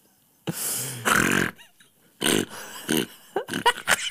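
Several bursts of a man's helpless, pig-like laughter. The first and longest starts about half a second in, and shorter ones follow.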